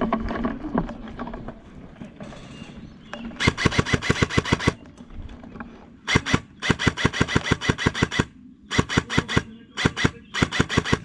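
Airsoft rifle firing full-auto bursts close by: four runs of rapid, even shots, about a dozen a second, each lasting one to two seconds, the first starting about three and a half seconds in.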